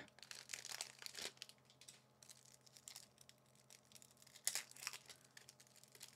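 Faint, intermittent crinkling and rustling of trading cards and their foil pack wrapper being handled, with a few brief louder rustles.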